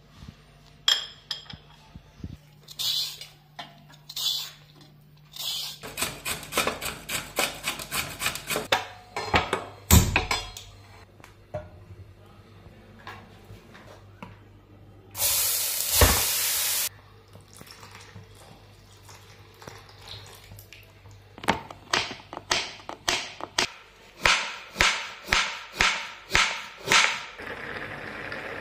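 Kitchen food-preparation sounds: runs of rhythmic strokes, about three or four a second, with scattered knocks of utensils on cookware. Midway there is a loud, steady rushing noise lasting about two seconds.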